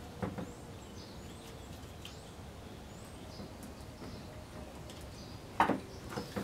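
Hands working at the plastic fourth brake light housing of a Scion FR-S while trying to unclip it: a faint click near the start, then a short cluster of knocks about five and a half seconds in. Faint bird chirps are heard in the background.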